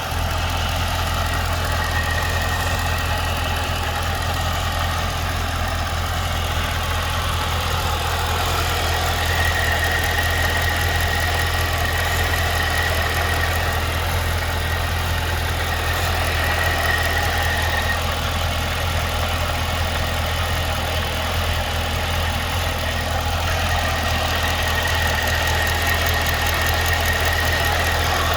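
2012 Cadillac CTS-V's supercharged 6.2-litre V8 idling steadily with a ticking/knocking sound. A high thin whine comes and goes over the engine note.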